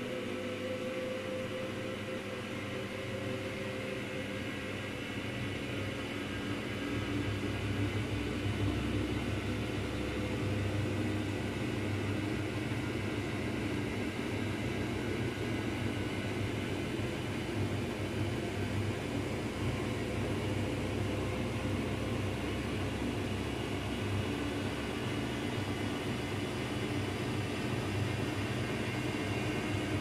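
Daewoo DWD-FT1013 front-loading washing machine spinning an unbalanced load in test mode, the drum speeding up from roughly 300 to 500 rpm. A steady motor and drum rumble that gets louder about seven seconds in.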